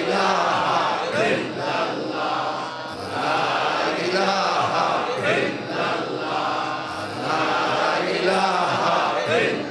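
Islamic dhikr (zikr): male voices chanting a short devotional phrase in rhythm, repeated over and over in swelling waves.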